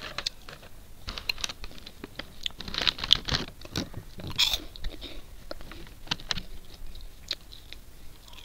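Crunchy packaged snack chips being bitten and chewed close to the microphone: a quick run of sharp, dry crunches, densest about three seconds in and thinning out towards the end.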